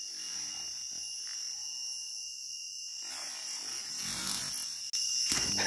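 A nighttime chorus of crickets and other insects, chirring in a steady, high, continuous tone. About three seconds in, a rustling noise of movement joins it.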